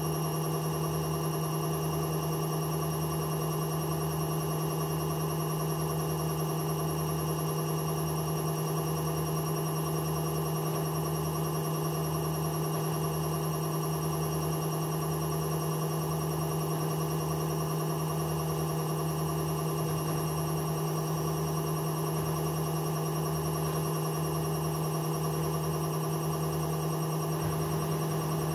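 VON front-loading washing machine running with a steady humming drone and a low throb about once a second: the noise of its worn-out drum bearings.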